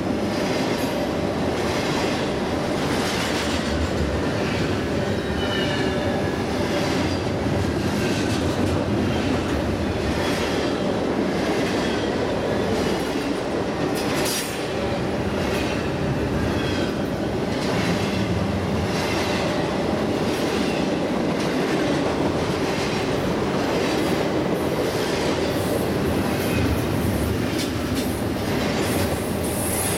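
Canadian Pacific double-stack intermodal freight train passing close at speed: the steady noise of the loaded well cars rolling by, with regular wheel clicks over rail joints and a faint intermittent wheel squeal.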